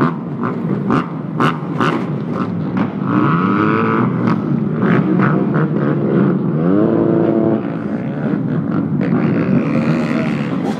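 Several motorbike engines revving up and down close by, overlapping, with sharp cracks among them and one engine rising steadily in pitch just past the middle.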